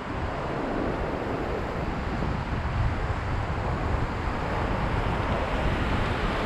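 Rushing whitewater of a river rapid, a steady noise without distinct events, with wind rumbling on the microphone. The low rumble grows a little louder toward the end as the boat closes on the rapid.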